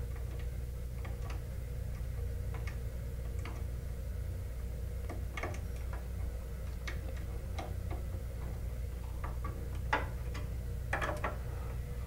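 Irregular small clicks and ticks of wires being handled and worked into the screw terminal strip of an alarm control panel's circuit board, with a quick cluster of louder clicks near the end. A steady low hum runs underneath.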